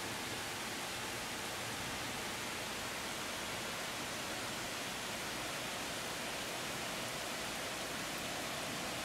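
Steady rain falling during a thunderstorm: a constant, even hiss.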